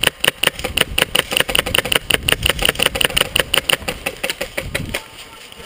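Airsoft gun firing a rapid string of shots, about seven sharp cracks a second, for roughly four and a half seconds before stopping.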